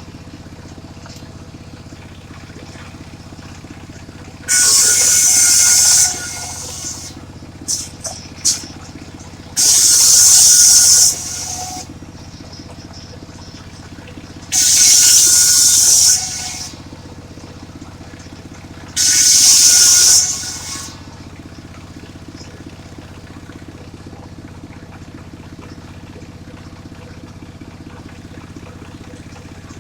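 Mobile circular sawmill running steadily, its blade cutting into a large suren log in four loud, high-pitched bursts of about a second and a half each, spaced about five seconds apart, with a few light knocks between the first two.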